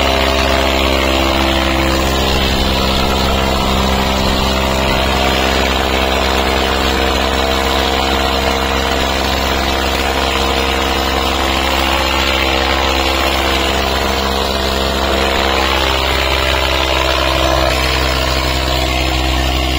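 Tractor diesel engines running hard and steadily under heavy load as two hitched tractors pull against each other in a tug-of-war.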